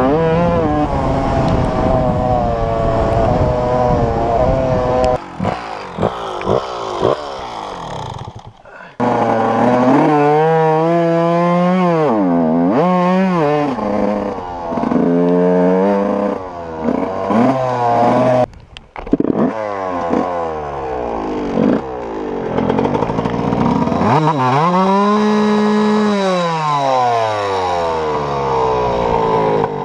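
Dirt bike engine revving up and down as the bike is ridden, its pitch rising and falling with each throttle change and dropping away to almost nothing twice. Near the end the revs fall away.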